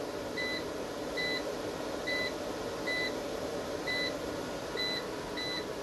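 EG4 6500EX solar inverter's control panel beeping as its menu buttons are pressed: seven short high beeps, about one a second, over the inverter's steady hum as it runs the well pump.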